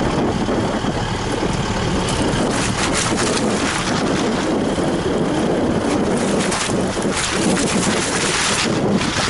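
Isuzu 4WD driving through mud and water, its engine running steadily under a rush of tyre, water and wind noise, with louder rushing bursts around three seconds in and near the end.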